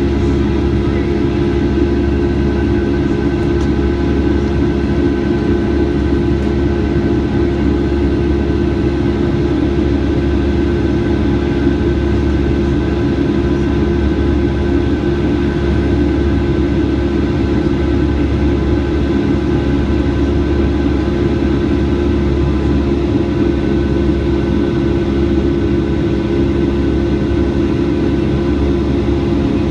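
Steady drone of a Boeing 757-200's jet engines heard inside the passenger cabin in flight, a constant rush with several steady whining tones over it.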